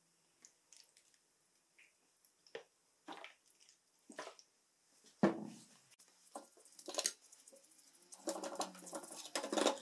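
Liquid cleaner squirted in short spurts from a squeeze bottle onto a moped's cylinder and cylinder head standing in a metal pan, with a single knock about five seconds in, then a bristle brush scrubbing the cooling fins near the end.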